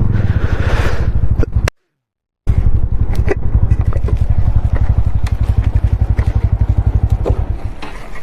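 Motorcycle engine idling with a steady, fast pulse, cut by a brief silent gap about two seconds in, with a few light clicks over it. The running dies down shortly before the end.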